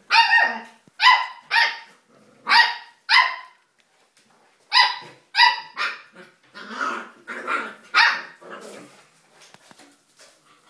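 Pembroke Welsh Corgi play-barking at a cat: about eleven sharp, high barks in three quick bunches, the last few rougher, then it falls quiet near the end.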